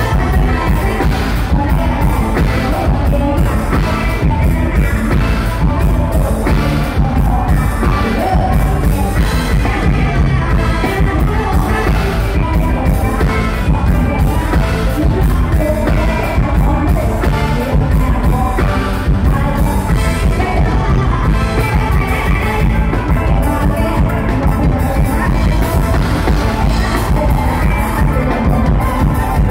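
Live Thai luk thung band music with a steady drum beat and a woman singing over it, played loud.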